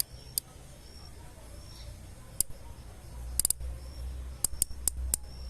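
Sharp, irregular clicks, with a quick run of four about three and a half seconds in and three more near the end, over a low rumble that grows from about three seconds in.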